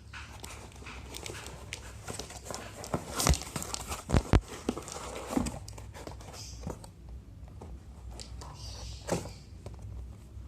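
Handling of a smartphone's retail box and packaging: scattered clicks, taps and rustles, with a few sharp knocks about three and four seconds in, over a steady low hum.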